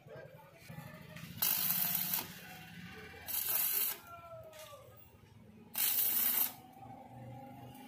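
Stick (arc) welding crackle on stainless steel railing tube: three short bursts of arc, each under a second, as the joint between a sloping rail and an upright post is tack-welded.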